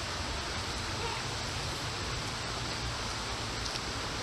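Creek water running, a steady rushing hiss.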